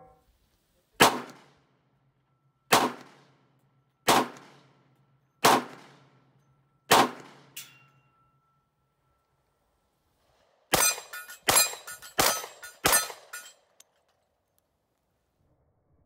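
Springfield XDM 10mm pistol firing: five single shots about a second and a half apart, then a faster string of about four shots in roughly two seconds.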